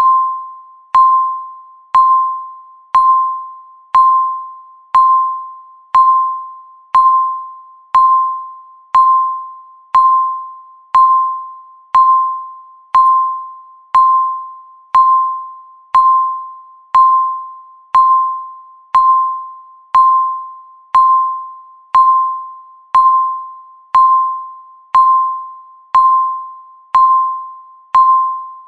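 Countdown timer beeping once a second: a single mid-pitched electronic tone, each beep starting sharply and fading away before the next.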